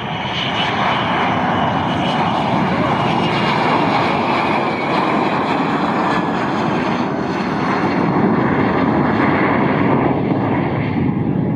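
Lockheed U-2 spy plane's single General Electric F118 turbofan on a low pass overhead: a loud, steady jet roar that swells in the first second and then holds.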